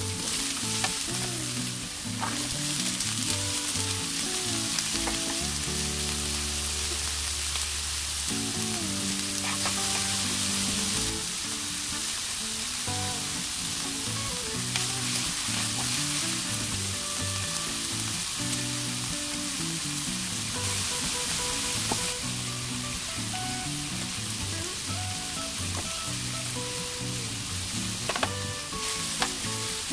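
Thinly sliced beef and sliced green onions sizzling in hot oil in a nonstick frying pan, stirred and turned with tongs.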